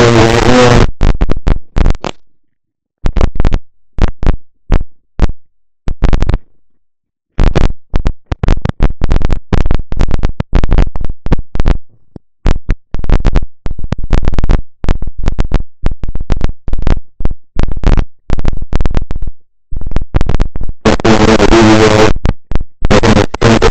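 Loud, crackling microphone static that cuts in and out in harsh, choppy bursts, with denser, buzzier stretches near the start and near the end. It is the sign of a faulty microphone.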